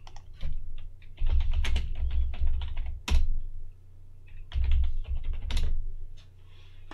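Typing on a computer keyboard: a quick run of keystrokes that ends in a harder Enter press about three seconds in, then a second short run that ends in another Enter press.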